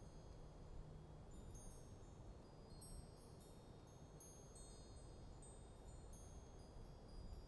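Wind chimes tinkling faintly and irregularly in a light breeze, many short high ringing notes overlapping at random, over a low, steady rush of wind.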